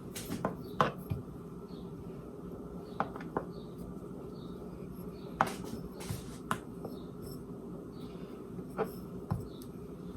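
Scattered light knocks and clicks, about ten at irregular intervals, from dough being rolled out flat on a cutting board with a makeshift round roller, over a steady low hum.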